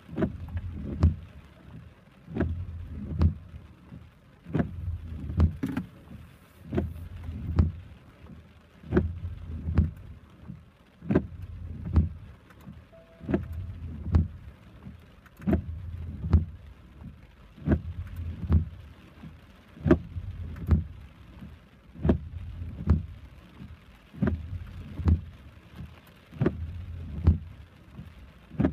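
Car windshield wipers sweeping back and forth on a steady cycle, with a knock at each end of the stroke, a pair of knocks about every two seconds, over rain falling on the car.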